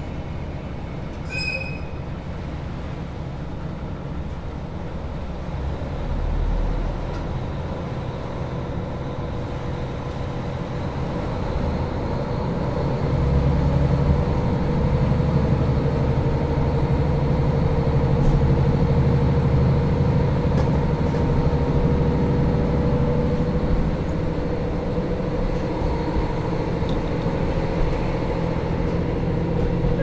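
JR KiHa 40 diesel railcar's engine running, heard inside the passenger cabin, growing louder about twelve seconds in and easing somewhat near the end. A brief high tone sounds about a second and a half in.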